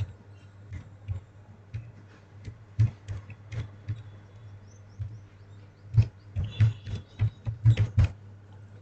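Computer keyboard being typed on, an email address being entered: irregular single keystroke clicks that come thicker in a quick run about six seconds in, over a low steady hum.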